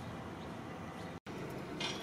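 Steady outdoor background noise that cuts out completely for an instant a little over a second in, where the footage is edited, with a short hiss near the end.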